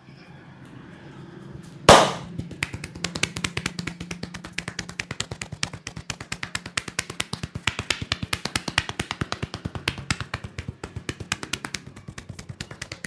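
Rapid, even hand-tapping on a head during an Indian champi head massage: several sharp pats a second, opened by one hard slap about two seconds in.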